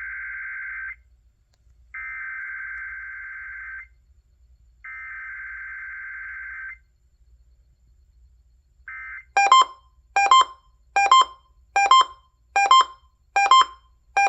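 Three SAME digital header bursts of an NOAA Weather Radio weekly test, each a steady two-second data screech, with about a second of silence between them. After a short blip, an alert starts beeping at about one and a half beeps a second.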